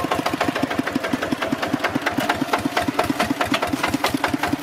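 Kubota walking tractor's single-cylinder diesel engine running steadily with a quick, even knocking beat while the tractor pulls a disc plough through the soil.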